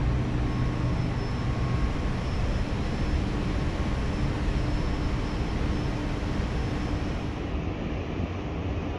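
Steady wind rushing over an open rooftop deck high above the city, with a faint continuous hum under it; the sound changes near the end.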